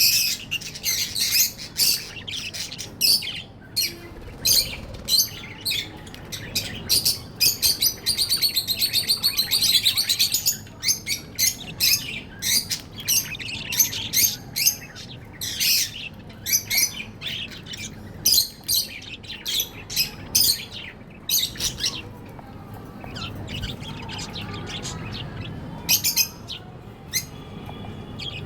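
Budgerigars chirping busily in quick, high, short calls, with a longer run of continuous warbling about a third of the way through. The chirps thin out and grow quieter near the end.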